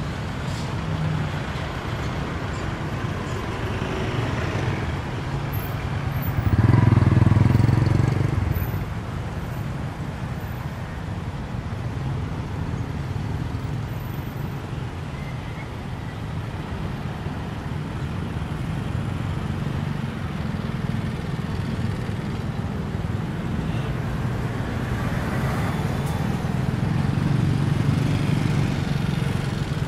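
Street traffic: cars and motorbikes driving past. One vehicle goes by close and loud about seven seconds in, and another swells up near the end.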